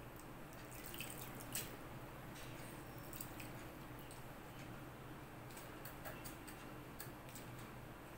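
Faint wet squishing and small scattered clicks of fingers mixing water-soaked leftover rice in a steel bowl, over a low steady hum.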